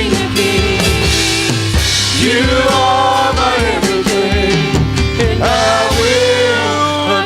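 Live gospel singing: a voice holding long, gliding sung notes over steady instrumental accompaniment.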